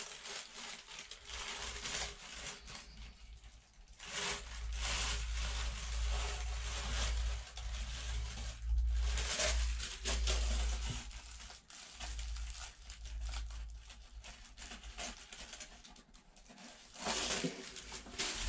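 Irregular scraping and rustling as resin filler is worked into the cracks and holes of a boat's stringers, with a low rumble at times.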